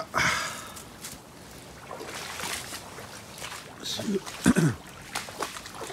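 Footsteps squelching and splashing through waterlogged mud and shallow floodwater, with a brief low voice sound a little past four seconds in.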